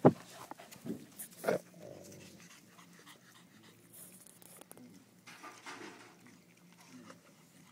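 Rottweiler chewing a piece of apple: a few sharp, loud crunches in the first second and a half, then quieter wet chewing.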